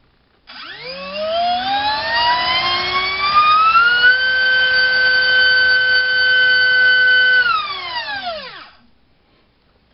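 Multistar Viking 2208 2600kv brushless drone racing motor spinning a three-bladed bullnose 4045 prop on a 4-cell battery: a loud whine that rises in pitch as the throttle is opened, holds steady at full throttle for about three seconds, then falls away as the motor spools down and stops.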